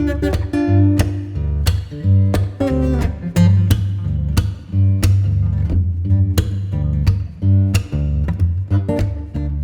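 Background music: plucked guitar with a strong bass line, notes struck in a steady rhythm.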